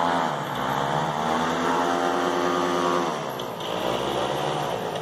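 Homemade mini airboat's MZ-34 paramotor engine and pusher propeller running. The pitch climbs, drops about three seconds in, then rises again.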